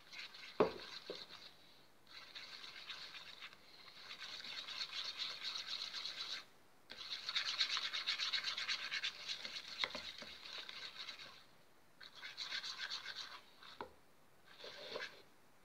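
A plastic stirring stick scraping quickly around a plastic bowl, mixing glittery glue and liquid detergent as the slime begins to form. It comes in several bursts of rapid strokes with short pauses between them, and the stick knocks against the bowl a few times.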